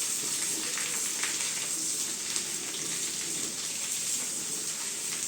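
Raw green mango pieces sizzling in hot mustard oil in a pan as they are stirred with the spices: a steady frying hiss with small crackles.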